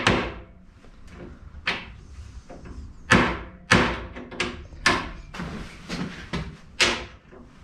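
Ball-peen hammer tapping a small steel assembly: about a dozen light, irregularly spaced taps, each with a short metallic ring. The taps seat short lengths of TIG wire as spacers in a slot.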